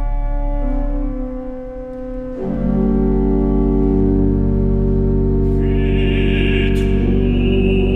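Pipe organ holding slow sustained chords. The sound thins briefly, swells into a fuller chord about two and a half seconds in, and a brighter high layer joins about five and a half seconds in.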